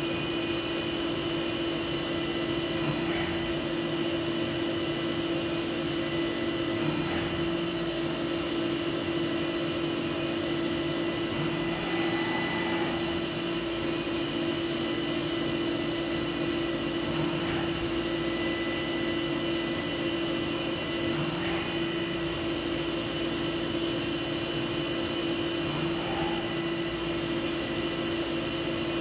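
CNC milling machine cutting a metal block with an end mill under coolant jets: a steady machining hum with a constant low tone from the spinning spindle and cut. The sound changes briefly every four to five seconds.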